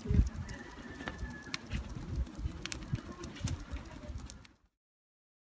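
Corn vendor fanning a charcoal grill of roasting corn cobs with a flat wooden board: irregular low whooshing puffs with scattered sharp ticks. The sound cuts off to silence about four and a half seconds in.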